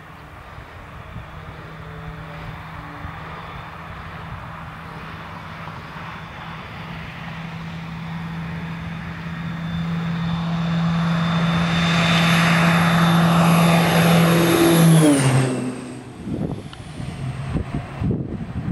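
A Beech C90B King Air's twin Pratt & Whitney PT6A turboprops at takeoff power: a propeller drone with a high turbine whine, growing louder as the plane rolls and lifts off. About fifteen seconds in the pitch drops sharply as it passes overhead, and the sound fades away.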